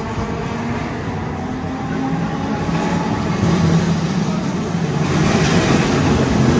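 Streetcar running, heard from inside the car: a steady rumble of motor and wheels on the rails that grows louder as the car picks up speed.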